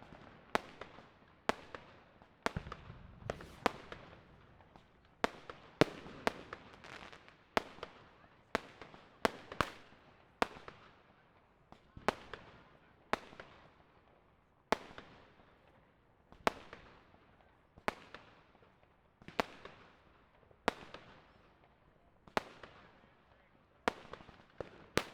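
Fireworks and firecrackers going off across a city: sharp bangs come about once a second, each trailing off in an echo, with fainter pops and crackles between them.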